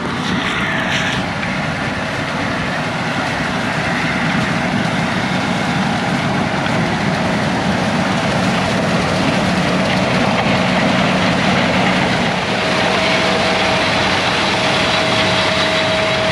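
Combine harvester running steadily under load, cutting a measured yield-plot strip of corn, with a steady engine hum and a higher whine.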